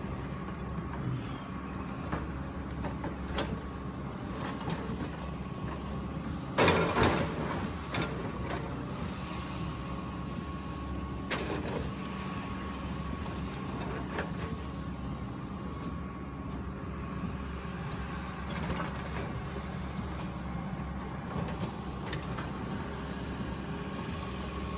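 Demolition machine's engine running steadily while it breaks down a brick building, with crashes and knocks of falling brick and debris, the loudest crash about seven seconds in and smaller ones around eleven and fourteen seconds.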